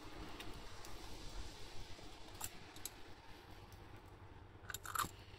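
Light metallic clicks from a Honda NS250F twin carburetor bank being handled, a couple of single taps and then a short cluster of clinks near the end as the float bowl is brought against the carburetor body, over a faint steady low rumble.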